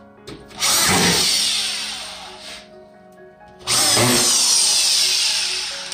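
Corded drywall screw gun run twice, about three seconds apart, driving screws into drywall; each burst of motor whir starts suddenly and dies away over a couple of seconds.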